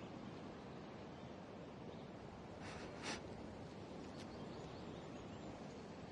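Quiet outdoor ambience with faint bird chirps. About three seconds in, two short crisp crunches: a bite into a baked flatbread.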